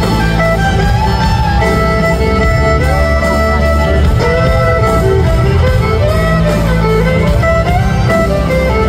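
Live band playing an instrumental passage of a country song: guitars and fiddle carrying bending melodic lines over a heavy, steady bass.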